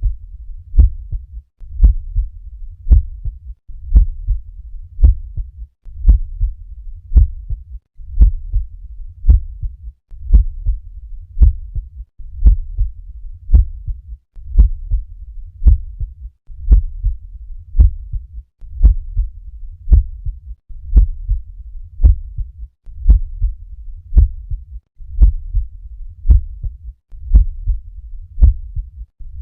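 Normal heart sounds heard through a stethoscope at the cardiac apex: a steady, regular lub-dub of the first and second heart sounds, about one beat a second.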